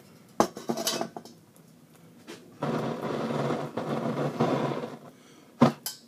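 Metal tins of a hobo stove clinking, then about two seconds of rushing air as the wax candle's flame is blown out, then a sharp metal clank near the end.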